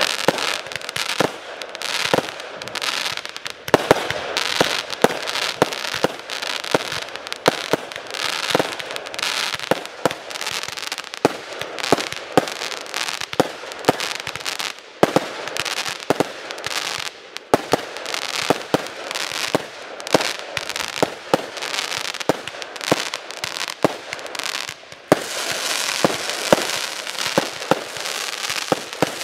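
Red Baron large firework barrage cake firing shot after shot: sharp bangs, roughly one or two a second, with sizzling crackle between them that thickens near the end.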